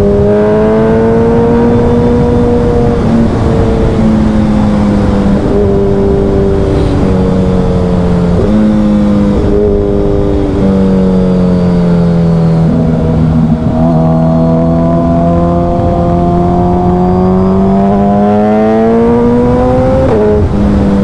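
Suzuki Hayabusa's inline-four engine running loud through a Brock's Alien Head 2 full exhaust at highway speed, with a deep note. Its pitch moves up and down with the throttle, climbs steadily in the second half, then drops suddenly near the end at an upshift.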